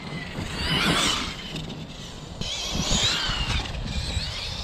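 Tekno MT48.3 electric RC monster truck driving fast over grass on a 4S battery, its brushless motor and drivetrain whining up and down in pitch as the throttle is worked, over a low rumble.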